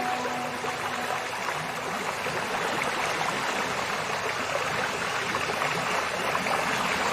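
Flowing river water: a steady, even rush of running water. Held tones of soft music fade out within the first second.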